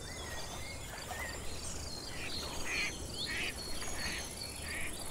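Outdoor nature ambience: insects trilling steadily with short bird chirps, and a raspy call repeated five times from about two seconds in.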